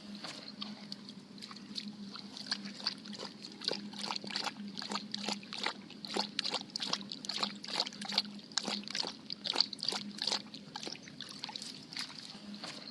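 A dog lapping water, quick rhythmic laps about three a second, over a low steady hum.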